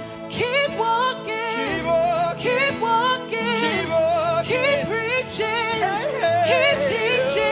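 Worship music: a voice singing slow, wavering, sliding lines over sustained instrumental chords, with the low bass notes shifting underneath.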